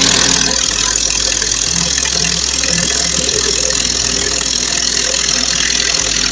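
Kinswood 20V brushless cordless impact wrench hammering steadily under load as it drives a large lag screw into a wooden post.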